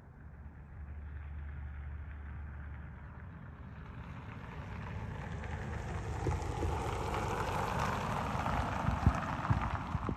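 A rushing noise that swells over several seconds and cuts off suddenly, with a low rumble under it at first and a few sharp knocks near the end.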